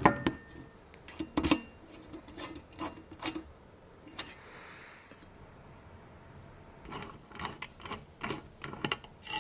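Scattered clicks, knocks and rubbing of metal and plastic parts being handled and screwed together while a power supply is fitted into a desktop computer case, with a soft rubbing hiss about four seconds in.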